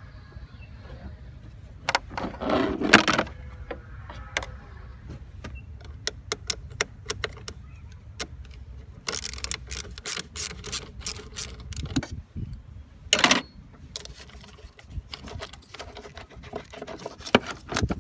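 A string of sharp clicks and knocks, with a few louder clattering bursts, over a low steady rumble.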